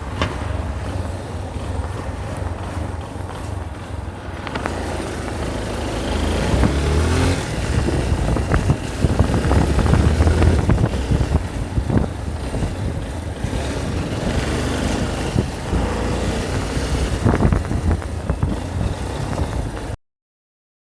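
Motor vehicle running while on the move, a heavy low rumble with rattles and knocks that grows louder about six seconds in. It cuts off suddenly near the end.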